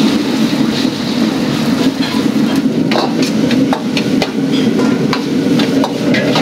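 A metal ladle clanking irregularly against a wok during stir-frying, over the loud steady roar of a commercial kitchen's wok burner and exhaust.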